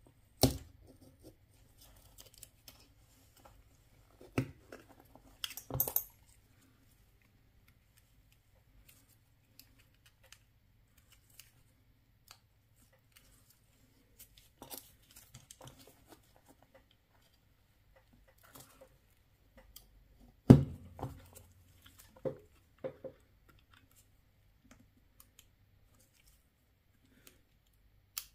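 Scattered clicks and taps of a Mercedes-Benz key fob's small plastic and metal parts being handled and fitted together, with quiet gaps between. The loudest is a heavier knock about twenty seconds in, like the key being set down on a hard surface.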